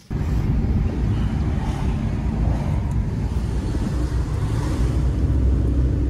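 Rental van on the move: a steady low rumble of engine and road noise that cuts in and out abruptly.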